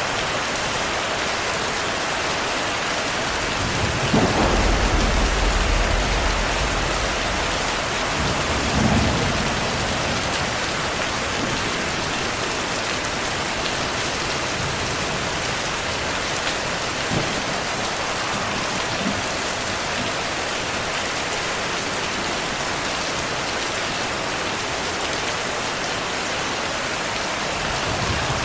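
Heavy rain falling steadily, with a roll of thunder about four seconds in that rumbles for a few seconds, and a second, shorter rumble of thunder a few seconds later.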